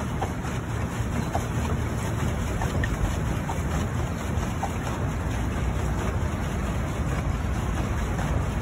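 Steady wind buffeting the microphone over the splashing churn of a pedal boat's paddle wheel in the water.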